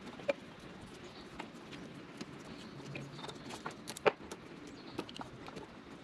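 Small clicks and rustling handling noises from electrical tape being wrapped tight around spliced wires, with one sharper click about four seconds in.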